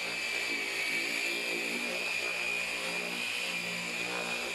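Electric car polisher running steadily, with a high motor whine and a lower hum that wavers slightly as the pad works the paint.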